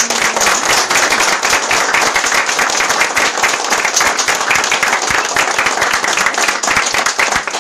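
A small roomful of people applauding: dense, steady hand-clapping that breaks out all at once at the end of a speech.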